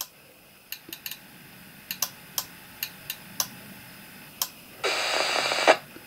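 Yaesu FT-817 transceiver's rotary channel selector knob clicking step by step as it is turned, about nine clicks. About five seconds in, a short burst of hissy noise comes from the radio's speaker as it lands on a channel.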